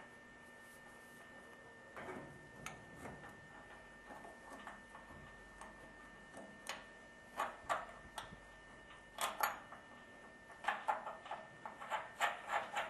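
Light clicks and metallic taps of copper pipe and fittings being handled and pushed together, scattered at first, then in quick runs of clicks in the second half.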